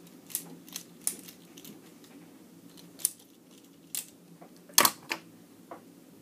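Hard plastic construction-toy pieces clicking and knocking as the toy knife is handled: about eight scattered sharp clicks, the loudest a quick double knock about five seconds in.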